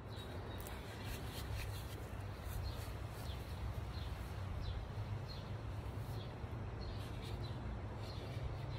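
Outdoor ambience: birds chirping now and then over a steady low rumble.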